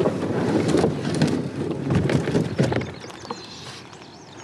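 A fishing kayak's hull scraping and grinding over gravel and stones as it is slid off the bank into the water, with crunching clicks; it stops about three seconds in.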